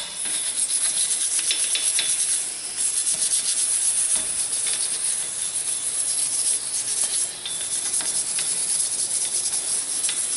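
Wire brush scrubbing light surface rust off a steel wheel hub face in quick repeated strokes, along with the hiss of aerosol brake parts cleaner spray, while the hub is cleaned ready for a new brake rotor.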